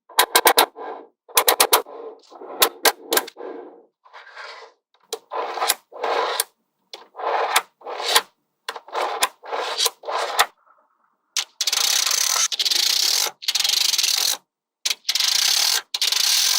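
Small magnetic balls clicking together in quick clusters of sharp snaps, mixed with short rubbing sounds. In the last third come longer hissing scrapes, each about a second long with short gaps.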